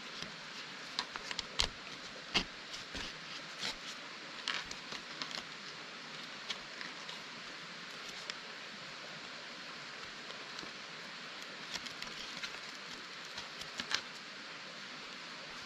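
Scattered light clicks, snaps and rustles over a steady hiss, busiest in the first six seconds and again shortly before the end.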